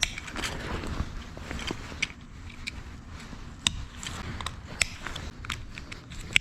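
Irregular clicks, taps and rustles of things being handled and moved, with a few sharper knocks, over a low rumble.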